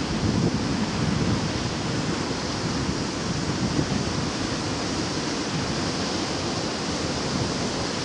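Sea waves washing onto the shore: a steady rushing wash that swells a little in the first second or so.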